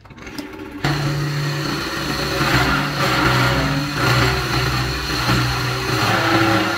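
Wood lathe running with a wooden vase blank spinning on it: a steady motor hum with a wide rushing noise that comes in suddenly about a second in and stays loud.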